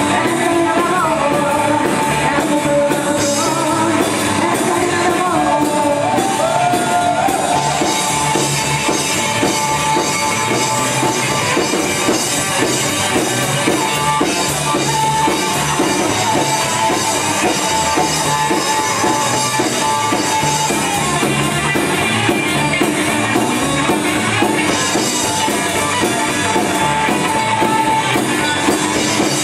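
Rockabilly band playing live, with drum kit, guitar and singing.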